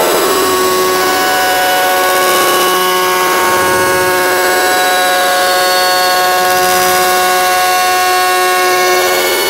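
Loud sustained drone of several steady held tones sounding together over a bright hiss, the tones wavering at the very start and then holding still.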